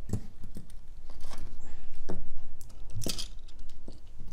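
Plastic LEGO parts, red train wheel sets and plates, clacking as they are set down and shuffled on a tabletop: a string of small, separate knocks and clicks.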